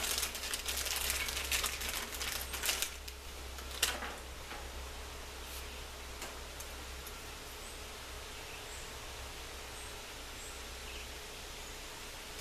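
Plastic crinkling and rustling from hands working packaging for about three seconds, a single click just before four seconds, then only a steady low background hiss with faint high chirps now and then.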